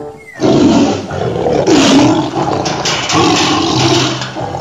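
A tiger roaring: a loud, rough roar with a wavering pitch, starting about half a second in and carrying on with only brief dips.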